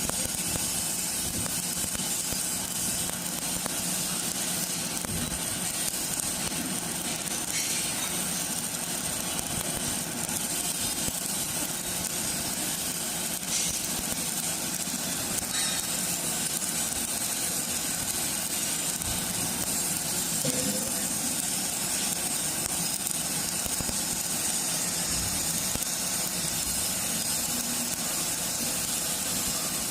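Electric arc welding: a steady, unbroken hiss from the arc, held at an even level with no pauses.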